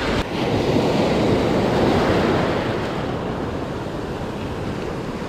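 Ocean surf washing onto the beach, with wind rumbling on the microphone; the wash swells about a second or two in and then slowly eases.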